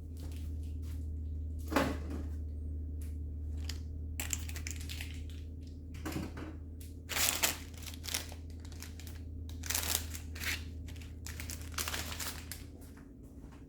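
Plastic packaging being handled, crinkling and rustling in irregular bursts, over a steady low hum that stops near the end.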